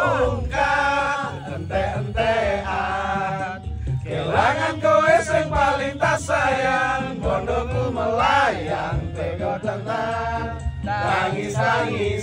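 A man singing a Javanese love song into a microphone over backing music with a repeated low beat.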